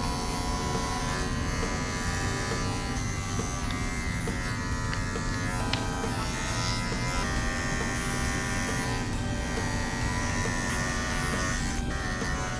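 Wahl Bravura Lithium cordless dog clipper running with a steady buzz as its blade trims the fur on a Giant Schnauzer's foot and leg.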